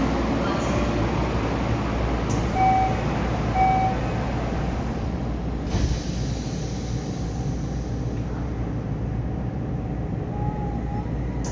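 Two short door-warning beeps from a Yokohama Municipal Subway 4000-series car, then the sliding doors close with a thud about six seconds in, over the steady hum of the stopped train.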